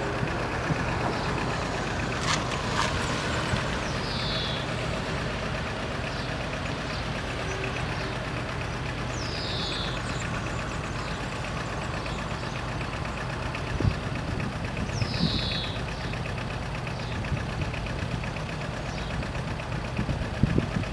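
Level-crossing bells ringing continuously and fast while the barriers are down and the warning lights flash, over a steady low engine hum.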